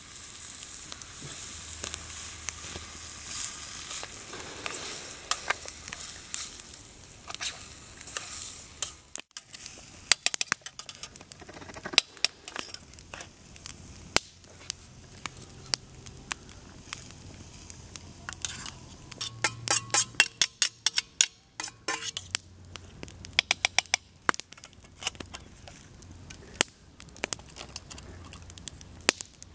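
Food sizzling as it fries in a pot over a campfire. After about nine seconds the hiss breaks off into scattered sharp clicks and knocks, with a quick rapid run of them about twenty seconds in, as the cooking is worked.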